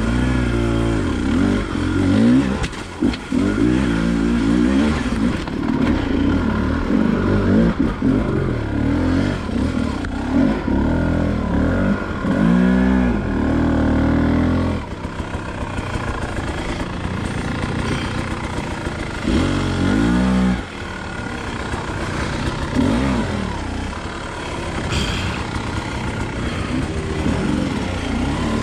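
Enduro dirt bike engine being ridden, its revs rising and falling over and over as the throttle is worked. There are strong bursts of revs about halfway through and again about two-thirds in, the second ending in a sudden drop.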